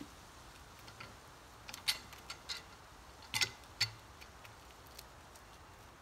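Scattered light clicks and taps at an irregular pace, loudest around two seconds in and again between three and four seconds in, over a faint steady background.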